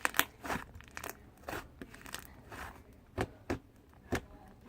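Slime being squeezed and stretched by hand, giving irregular wet clicks and pops, a few sharper snaps past the middle.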